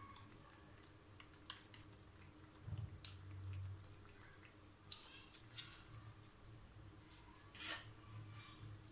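Thick tomato gravy simmering in a pan, giving faint, irregular pops and drips as bubbles break, while a thin stream of fresh cream is poured in.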